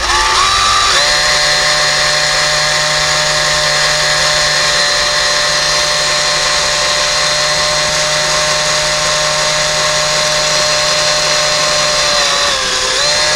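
Cordless drill spinning a 1/16-inch bit, pre-drilling a pilot hole into painted wood window molding at slow speed. The motor whine climbs to speed within the first second, runs steady, and dips briefly near the end.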